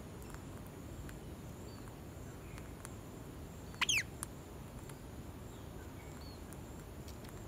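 Rose-ringed parakeet pecking rice off a wooden plank, a few faint scattered clicks, then one short, shrill call about four seconds in. A steady low background noise runs underneath.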